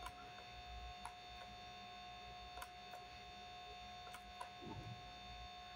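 Quiet room tone with a steady electrical hum, and a few faint, scattered clicks of a computer mouse.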